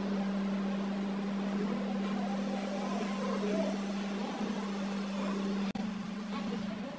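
A steady low machine hum at one pitch, with a faint hiss behind it; it dips briefly with a click a little under six seconds in.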